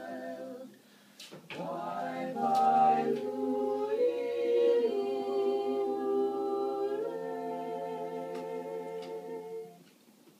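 A mixed vocal quartet of two women and two men singing Christmas music a cappella in close harmony. They stop briefly about a second in, come back in, and close on a long held chord that ends near the end.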